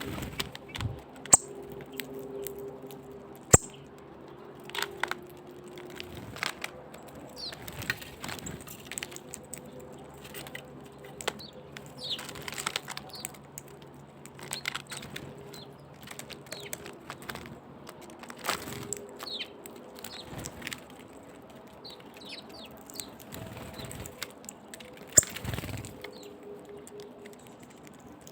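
Nuthatches, hawfinches and other small birds: short, high chirps scattered throughout, with wing flutters and sharp clicks and taps, the loudest clicks about a second in, a few seconds in, and near the end.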